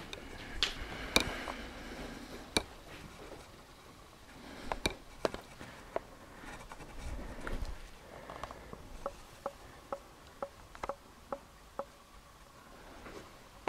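Footsteps on a hard floor: sharp clicks and taps, scattered at first, then an even run of about two steps a second in the second half.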